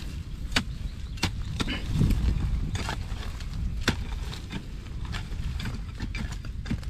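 Irregular sharp knocks and clicks, roughly one every half second to a second, over a steady low rumble.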